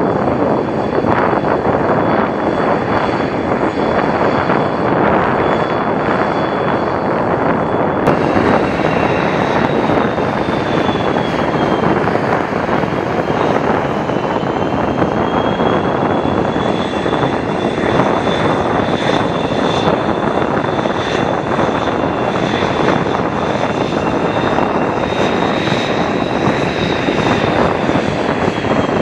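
Twin General Electric F404 turbofan engines of F/A-18C Hornet fighter jets running at taxi power: a loud, steady jet noise with a high whine. The whine changes abruptly about eight seconds in, then slowly rises and falls in pitch.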